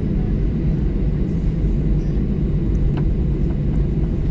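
Steady low rumble of a Boeing 737-800's CFM56-7B engines and airflow, heard from inside the cabin.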